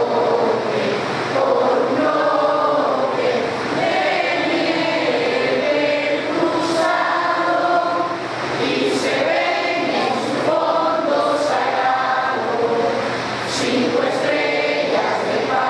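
A group of people singing together in unison, adult and children's voices mixed.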